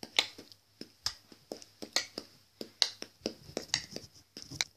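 A rapid, irregular series of short, sharp clicks and taps over a low, steady hum.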